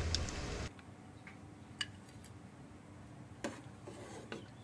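Steady outdoor background noise that cuts off abruptly under a second in, then a few separate sharp clicks of a ladle touching a ceramic plate as curry is served onto it.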